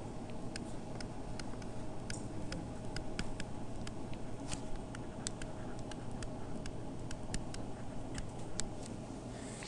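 Pen stylus tapping and clicking on a tablet screen while handwriting: a quick, irregular run of light ticks over a low steady hum.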